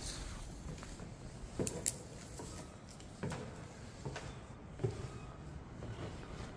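Slow footsteps on steps: separate thuds roughly every second and a half, two of them close together about two seconds in.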